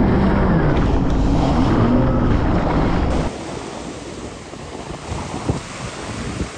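Jet ski engine running, its pitch rising and falling as the throttle is worked. About three seconds in it cuts off suddenly, leaving wind buffeting the microphone and water noise with scattered thumps.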